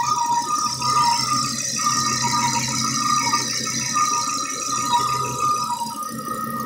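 A 2004 Volvo S60 making a loud, unexplained "crazy noise" after acceleration: a rattling, mechanical whine that keeps flipping back and forth between two close pitches every half second or so.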